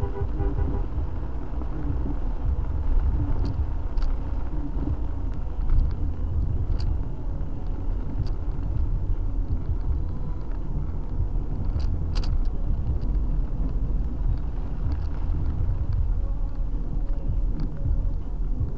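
Car driving on a wet road in heavy rain, a steady low rumble of engine and tyres, with scattered light ticks.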